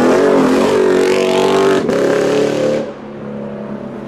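Lexus IS F's V8 engine driving past under throttle, its note dipping twice and then dropping away sharply about three seconds in.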